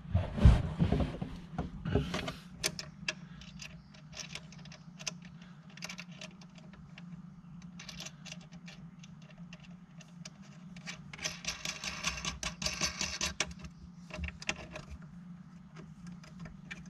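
Metal hardware clicking and clinking as nuts are threaded onto the steering helm's mounting bolts and tightened by hand tools, with a dense run of rapid clicks about two-thirds of the way through. A steady low hum sits underneath.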